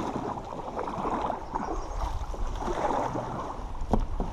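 Creek water gurgling and rippling around a canoe as it is paddled through a shallow, winding stretch, with a low rumble underneath. Two short sharp knocks come about four seconds in.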